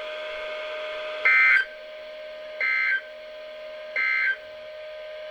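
Three short bursts of NOAA Weather Radio SAME digital data tone, each under half a second and about 1.4 s apart. Their length marks them as the end-of-message code closing a severe thunderstorm warning broadcast. A faint steady tone sounds underneath.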